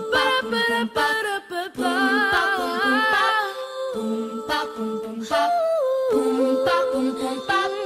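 Song intro: children's voices humming a wordless melody with vibrato over a light, steady beat.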